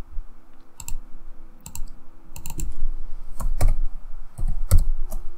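Typing on a computer keyboard: a run of irregular key clicks as a short name is keyed in.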